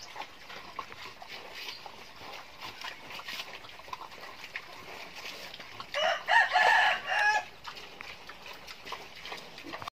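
A rooster crows once, a single drawn-out call about six seconds in, over faint, scattered clicking and rustling.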